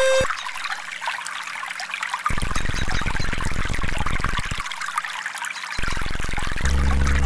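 Recorded running water trickling, with a deeper pouring sound coming in about two seconds in and again from about six seconds. A steady electronic tone cuts off just after the start, and another steady low tone comes in near the end.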